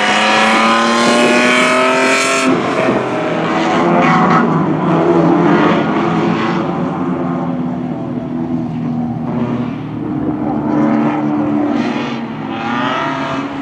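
Engines of several small race cars revving hard as a pack races around the track. One engine climbs steadily in pitch and drops suddenly about two and a half seconds in, like a gear change, and other engines then rise and fall over each other.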